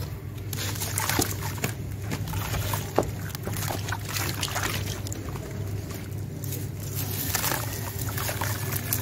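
Hands sloshing and splashing in watery grey cement slurry as a dry sand-cement chunk is dipped into it, with a sharp knock about three seconds in; near the end, gritty dry sand-cement is poured over the chunk. A steady low hum runs underneath.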